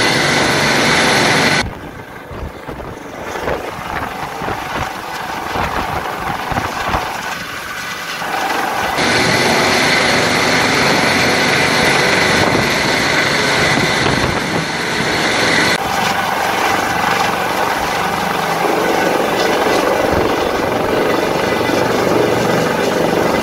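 Helicopter hovering low overhead: steady rotor and turbine noise with a high whine. It drops quieter about two seconds in and comes back to full loudness about nine seconds in.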